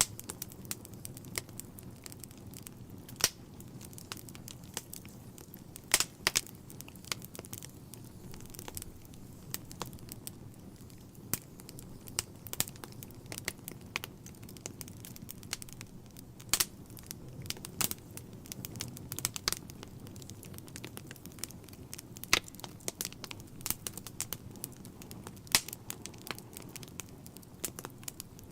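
Wood logs burning in a fireplace: irregular sharp crackles and pops, a few of them louder, over a low steady rumble.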